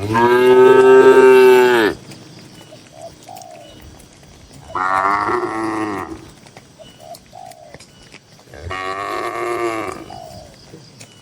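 Cattle mooing in a pen: three long moos about four seconds apart, the first the loudest.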